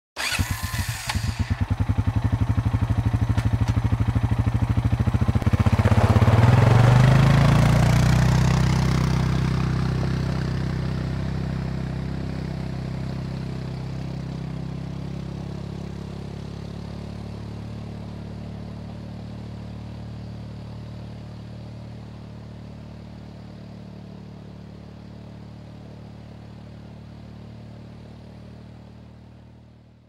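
An ATV engine runs at a rapid, even idle chug, then revs up about five and a half seconds in. It holds a steady pitch while slowly fading away over the rest of the clip.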